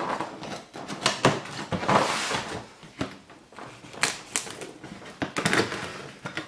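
Kitchen knife cutting open a cardboard box along its top seam, heard as a series of scratchy scrapes and sharp clicks as the blade and hands work the cardboard.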